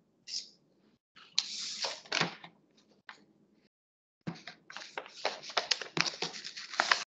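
Clicks, knocks and rustling close to the microphone: objects being handled at the desk. The sounds come in short scattered bursts at first, then a fast run of sharp clicks in the second half, which cuts off suddenly.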